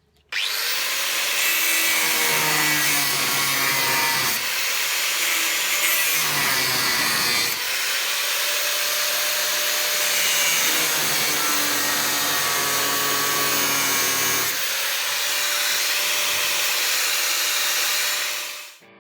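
4-inch angle grinder cutting through the heads of rusted-solid body-mount bolts on steel, a steady loud grinding with a motor whine that sags in pitch and recovers as the disc bites in. It starts about half a second in and stops just before the end. The bolts are cut off because their nuts have rounded off and are too far gone to undo.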